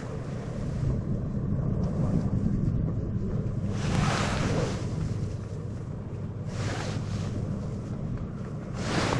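Wind buffeting the microphone in a steady low rumble, with louder rushes about four, seven and nine seconds in.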